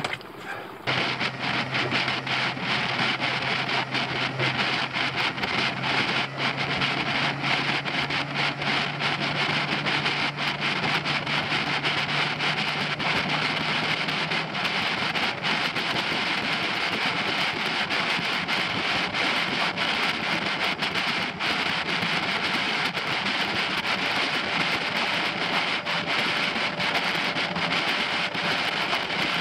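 Suzuki DF90A four-stroke outboard running at steady cruising speed, pushing a freighter canoe, under a continuous rush of wind and water. The sound starts about a second in.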